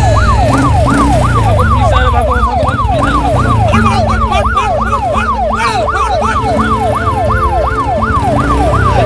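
Police siren wailing in a fast yelp, its pitch sweeping up and down about three times a second, over a deep low rumble.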